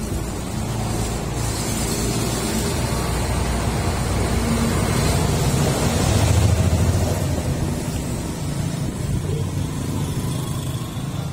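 A motor vehicle engine running, growing louder to a peak a little past the middle and then easing off.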